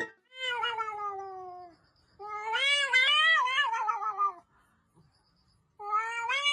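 A cat meowing in three long, drawn-out calls with pauses between: the first falls in pitch, the second wavers up and down, and the third begins near the end.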